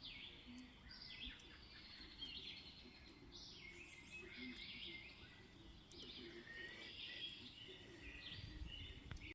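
Faint birdsong: several birds chirping and trilling, with calls overlapping throughout.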